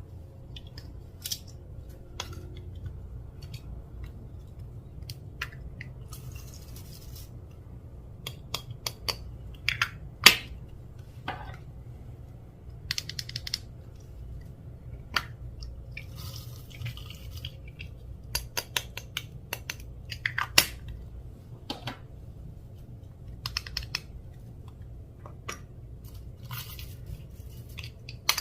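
Clear slime being mixed and pressed by hand, giving irregular sticky clicks and pops.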